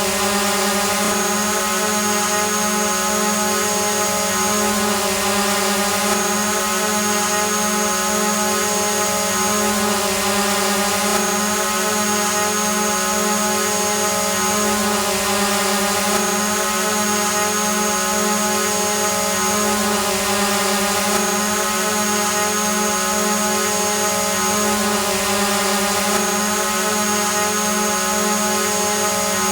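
Quadcopter drone hovering, its motors and propellers giving a steady buzzing hum with a high whine on top that breaks off briefly about every five seconds.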